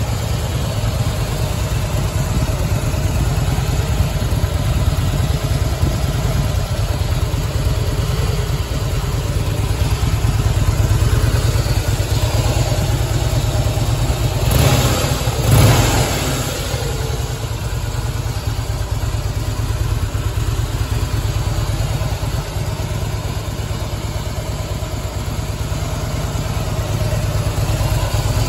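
2008 Harley-Davidson FLSTF Fat Boy's Twin Cam 96 V-twin engine idling steadily, blipped twice in quick succession about halfway through.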